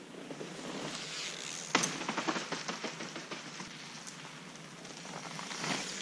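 Mountain bike tyres crackling over leaf litter and dirt, with a sharp click and a run of small ticks and clatters, building again near the end.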